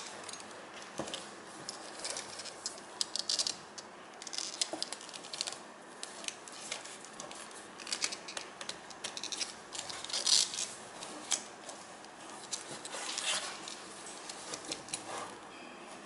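Handling noise of a full-grain leather belt being worked through its brass buckle and keeper: irregular rustling and small clicks as the leather slides and rubs and the buckle knocks about.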